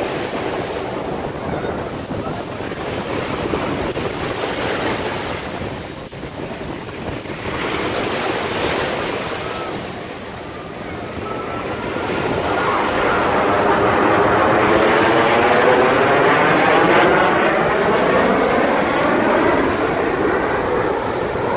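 Formation of six jet aircraft flying over: jet roar that swells from about halfway through into a loud rush with a sweeping, swirling rise and fall in pitch. Surf and wind on the microphone sound throughout.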